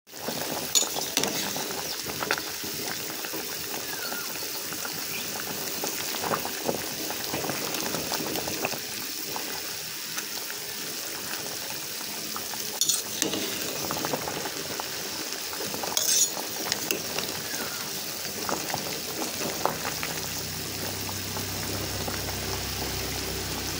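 A metal pot of soup at a rolling boil, bubbling steadily. A ladle stirs it and knocks against the pot a few times.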